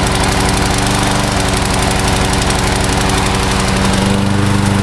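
Troy-Bilt push mower's 190cc 675-series engine running steadily, just started and still cold. About four seconds in, the engine note turns deeper and fuller as the mower is set back down on its wheels.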